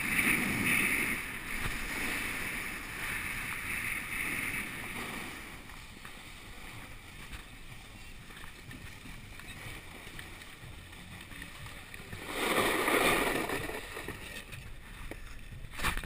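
Skis sliding and scraping over packed snow, with wind rushing on the microphone, loudest in the first few seconds and easing as the skier slows. A short, louder rush of noise comes about three-quarters of the way through.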